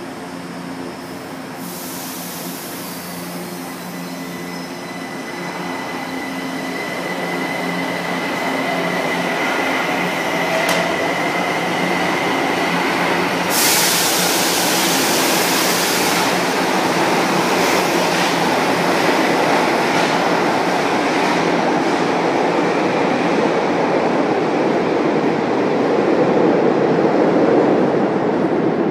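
São Paulo Metro Line 1 train running on the track through the underground station, with steady motor tones early on and wheel-and-rail noise building steadily over about twenty seconds. A brief sharp high-pitched burst comes about fourteen seconds in.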